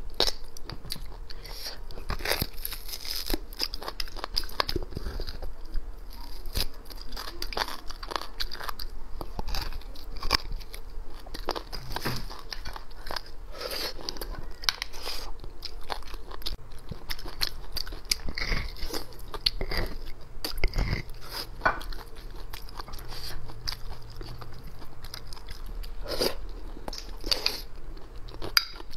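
Close-miked chewing and biting of braised beef bone marrow and the meat on the bone: a dense run of wet clicks and crunches, with a metal spoon scraping marrow out of the bone.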